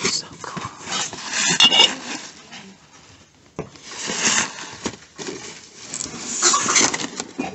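Rubbing and rustling of cardboard boxes and tissue paper being handled, in several rough bursts, with a sharp click about three and a half seconds in.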